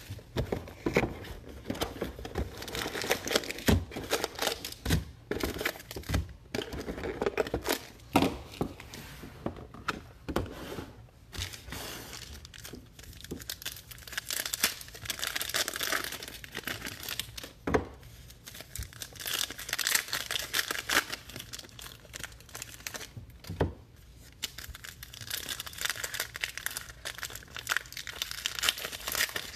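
Foil card-pack wrappers and box wrap of 2018 Illusions football cards being slit, torn open and crinkled by hand. Scattered sharp knocks and taps of boxes and packs being handled come mostly in the first dozen seconds, then longer stretches of crinkling.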